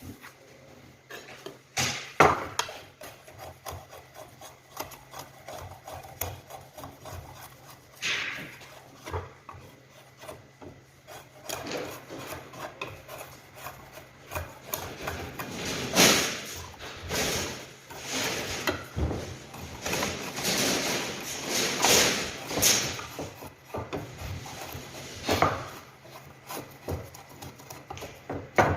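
Irregular scraping and rubbing strokes from hand work on the axe, with a few sharp knocks; the strokes come thickest about two-thirds of the way through.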